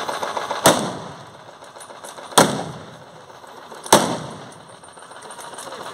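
Three blank rifle shots, about a second and a half apart, each trailing off in a short echo.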